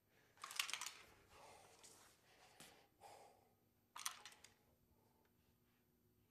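Near silence broken by a few faint, short rustling sounds, the clearest about half a second and four seconds in.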